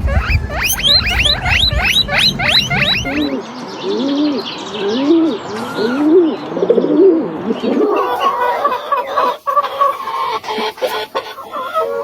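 A run of bird calls that changes twice. First come rapid, high, repeated calls, about four a second. Then lower arching calls follow, about two a second. From about eight seconds in, hens cluck in a henhouse.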